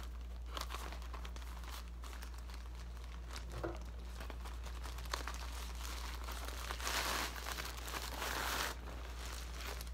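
Plastic wrapping and a fabric drawstring bag rustling and crinkling as a tripod is slid out and handled, with scattered small clicks and a denser stretch of crinkling about seven seconds in.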